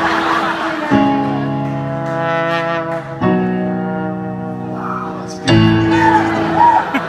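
Trombone playing a slow, sorrowful solo of long held notes, moving to a new note about every two seconds, over crowd noise in a concert hall.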